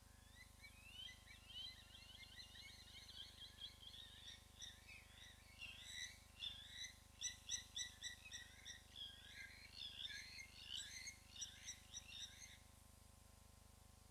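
African wild dog twittering: a long run of faint, high-pitched, bird-like chirps, quickening and growing louder towards the middle and stopping abruptly about twelve and a half seconds in.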